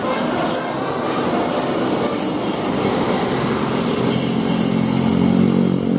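Road traffic with a large bus passing close, its diesel engine note building up in the second half and loudest near the end.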